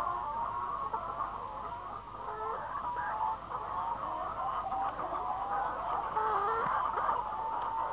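A flock of brown laying hens clucking and calling over one another, a continuous chatter of many short, wavering calls without a break.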